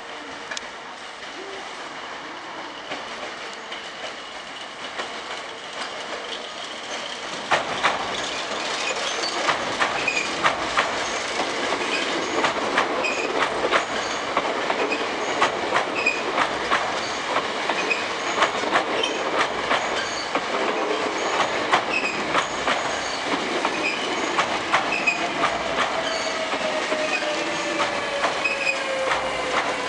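Hankyu 8300 series electric train pulling into a station, its wheels clacking fast and unevenly over rail joints and points, louder from several seconds in. Near the end the Toyo Denki VVVF inverter and traction motors whine, falling in pitch as the train brakes.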